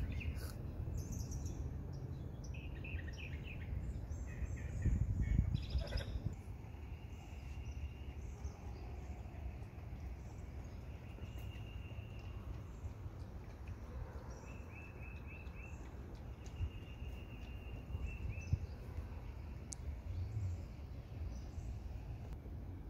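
Outdoor ambience: birds chirping and trilling now and then over a steady low rumble of background noise, which swells about five seconds in.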